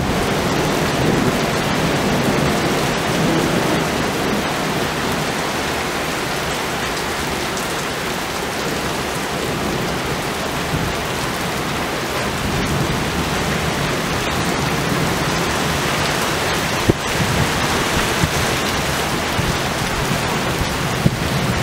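Thunderstorm: rain falling steadily, with thunder rumbling low underneath in the first few seconds and again about three-quarters of the way through. A few sharp taps come near the end.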